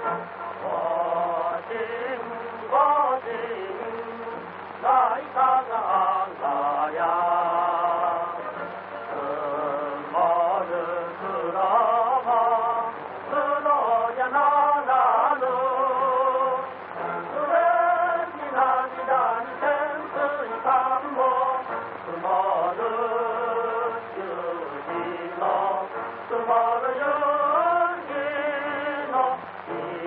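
Men's voices singing a song together, with wavering held notes, on an old film soundtrack.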